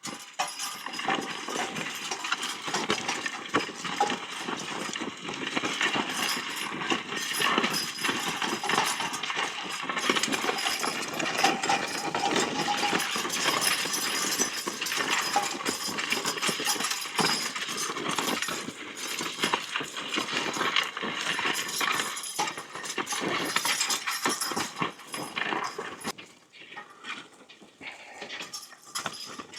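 A team of Percheron horses in harness with trace chains, the metal jingling and clinking continuously as the team works with the plough, mixed with hoof steps. It thins out and quietens near the end.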